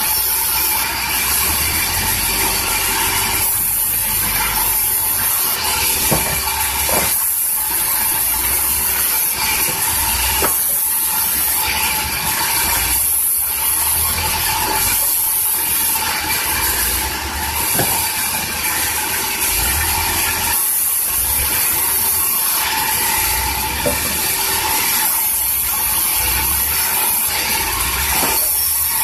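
Large stationary band sawmill running as its blade rips lengthwise through a big mango log: a loud, steady, hissing whine that dips briefly every few seconds.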